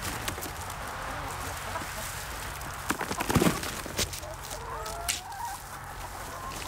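Hens clucking as they feed on freshly forked compost, with drawn-out wavering calls in the second half. A few knocks and scrapes of a garden fork working the compost come about three seconds in.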